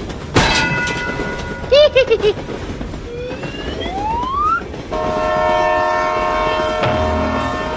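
Cartoon train sound effects: a steady horn chord sounds suddenly about half a second in, with short falling boing-like chirps and then a rising slide-whistle-like glide, followed by a long steady train-horn chord from about five seconds in.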